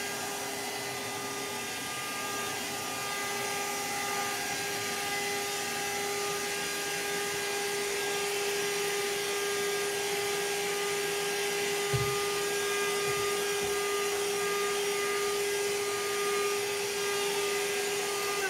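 Vacuum cleaner running steadily, its motor giving a constant whine over the rush of air. There is a single short knock about two-thirds of the way through.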